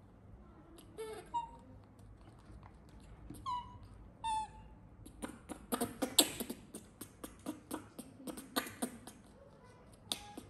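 Baby macaque giving a few short, high squeaks that slide down in pitch. From about halfway through, hard plastic toys are rattled and knocked on a wooden table in a quick run of clicks and clacks.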